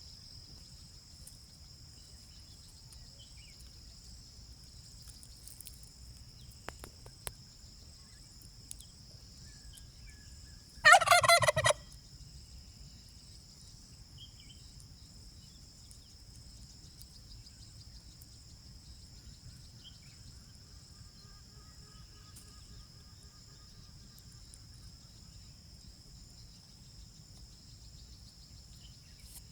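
A domestic turkey gobbles once, a rapid rattling call lasting about a second, about eleven seconds in. Under it runs a steady high-pitched drone of insects.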